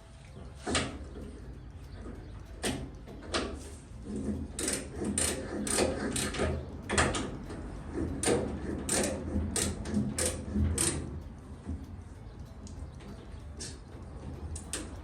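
Spanner work on a bolted part: irregular metallic clicks, knocks and clinks of hand tools on metal as bolts are undone. They are busiest in the first eleven seconds, then thin out.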